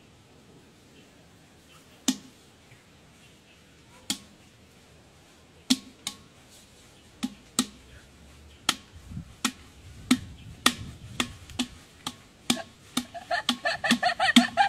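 Hollow percussive knocks, like a struck wood block or hand drum. A single knock comes about two seconds in and another about four, then they come faster and louder until there are several a second. A pitched melodic line joins them near the end.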